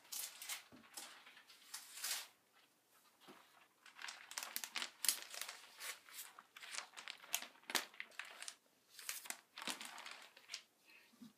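Clear cellophane bag crinkling in irregular rustles and crackles as it is handled and slid over a mounted print.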